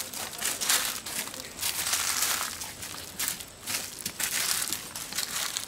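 Footsteps crunching on dry leaves and fallen palm fronds as people walk down outdoor steps, an irregular run of short crunches.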